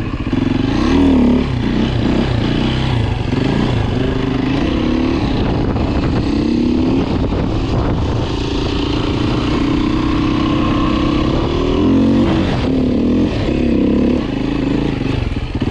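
Beta RR 450 single-cylinder four-stroke dirt-bike engine under load while riding, its pitch repeatedly rising and falling as the throttle is opened and closed.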